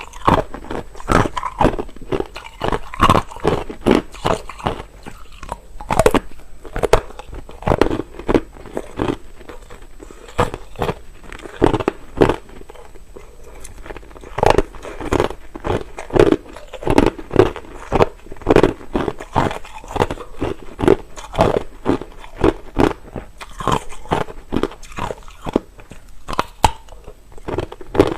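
Close-up crunching and chewing of hard crushed ice in the mouth, a rapid run of sharp crunches, about two to three a second.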